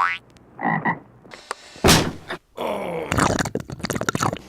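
Frog croaks: a short croak, then a single loud thump about two seconds in, followed by nearly two seconds of rapid rattling pulses.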